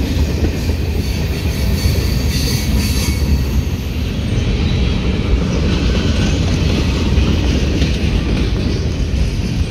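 CSX freight train of tank cars and boxcars rolling past, a steady heavy rumble of steel wheels on rail, with a thin high wheel squeal about two to three seconds in.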